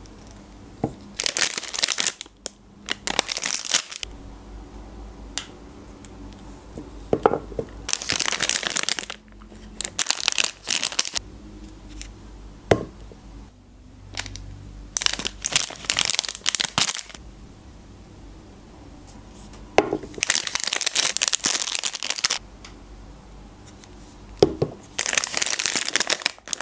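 Magnum ice cream bar wrappers being torn open and crinkled, in about seven bursts of rustling a few seconds apart, with short clicks in between.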